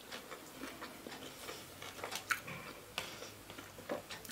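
Faint, irregular crunching and clicking of someone chewing crispy fried momos with her mouth closed.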